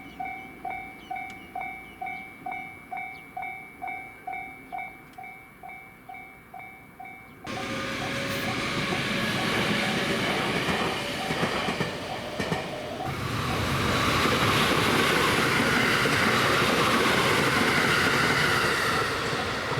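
Japanese railroad crossing bell ringing a steady "kan-kan" clang about twice a second. About seven seconds in, the limited express Shirasagi electric train suddenly rushes through the crossing with wheel clatter, burying the bell. The train noise grows louder from about thirteen seconds.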